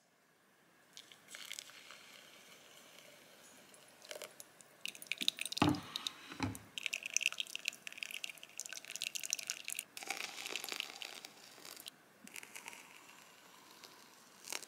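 Quiet sounds of making drip-bag coffee: the paper drip filter rustling and crinkling as it is handled, two soft knocks about halfway through, then a stretch of hiss and trickling as hot water is poured over the grounds.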